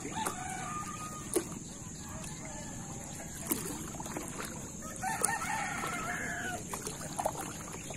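Calls like a bird's crowing: a short one near the start and a longer, held one about five seconds in, with a few sharp knocks in between.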